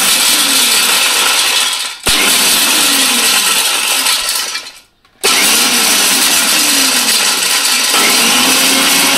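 Electric mixer grinder coarsely grinding roasted peanuts, its motor and blades running in pulses with the nuts rattling in the steel jar. It dips briefly about two seconds in, stops for a moment a little before halfway, then starts again.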